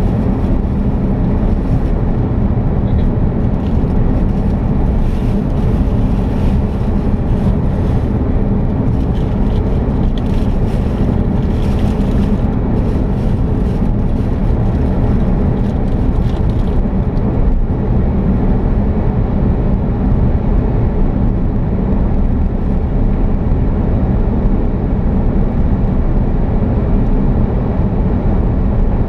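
A car on the move: a steady low rumble of engine and road noise, with faint hissing flickers in the first half.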